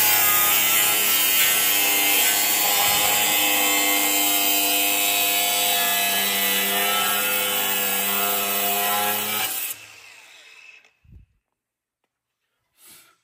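Handheld power tool cutting metal, running steadily with a whine and then stopping suddenly about ten seconds in.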